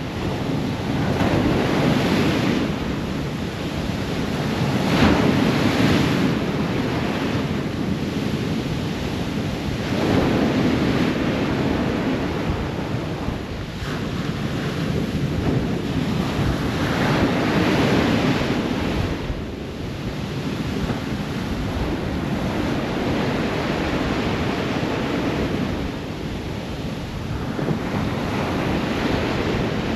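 Ocean waves breaking and washing on a shore: a steady surf noise that swells and eases as each wave comes in, every several seconds.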